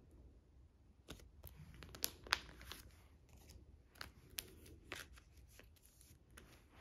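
Faint crinkling and sharp clicks of a clear plastic photocard sleeve being handled and slid into a binder page pocket, the loudest clicks a little after two seconds in.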